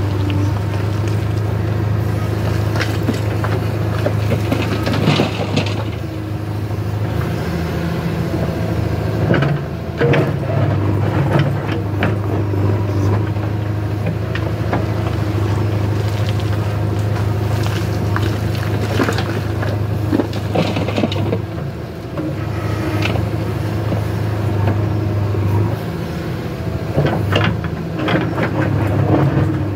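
JCB 3DX backhoe loader's diesel engine running under hydraulic load as the backhoe bucket digs murum (gravelly soil) and loads it into a tractor trolley. Soil and stones scrape and clatter against the bucket. The engine note dips briefly a few times as the arm moves.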